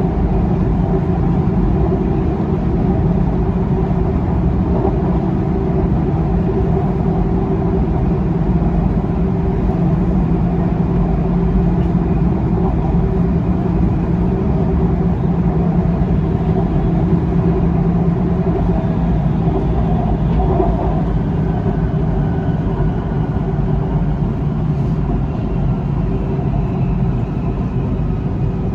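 Siemens Inspiro metro train running at speed, around 90 km/h, heard from inside the car: a steady wheel-on-rail rumble with a low traction-motor hum. A faint higher whine comes in during the second half.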